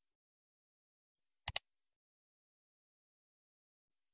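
A mouse-click sound effect: one quick double click about one and a half seconds in, with dead silence around it.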